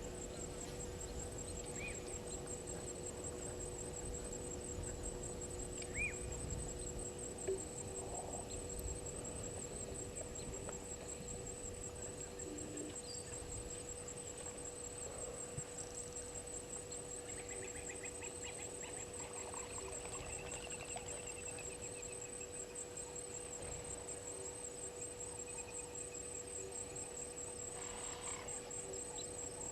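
Afternoon bush ambience at a waterhole: a steady, high-pitched insect trill with a fast pulse, over a faint steady hum. Short bird chirps come about 2 and 6 seconds in, and a warbling bird call runs from roughly the middle of the stretch for a few seconds.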